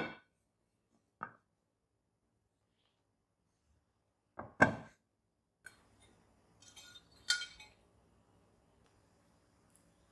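Glass cake plate and metal bundt pan knocking and clinking together as the pan of monkey bread is turned out onto the plate: sharp knocks at the start, a smaller one about a second in and a loud one at about four and a half seconds. Lighter knocks, scrapes and a clink follow as the pan is lifted off the bread.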